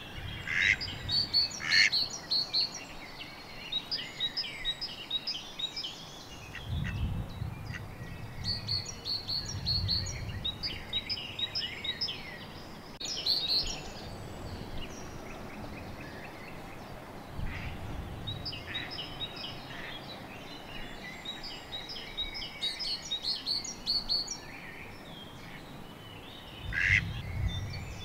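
Songbirds singing in spring woodland, with a duck quacking a few times, near the start, midway and near the end. A few soft low rumbles lie underneath.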